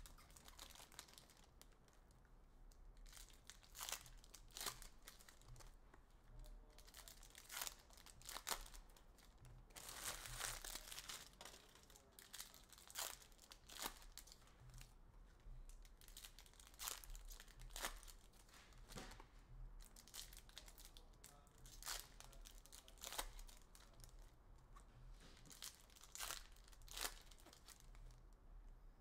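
Trading card packs being opened and handled: wrappers crinkling and tearing, with many short snaps and rustles and a longer stretch of rustling about ten seconds in.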